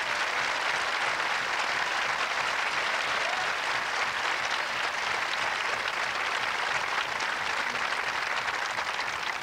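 Audience applauding, a steady dense clapping that holds at one level throughout.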